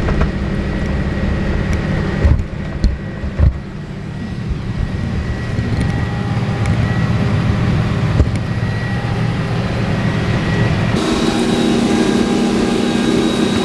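Tractor engine running steadily, heard from inside the cab while it pulls a grain cart, with a few knocks about two to three and a half seconds in. Near the end the engine note changes and a higher, humming tone joins it.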